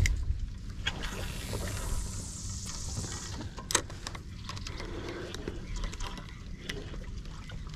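Shimano Saragosa 5000 spinning reel casting and retrieving a topwater popper: a soft hiss for a couple of seconds as the line goes out, a single sharp click a little under four seconds in, then faint scattered clicks as the reel is cranked, over a low rumble.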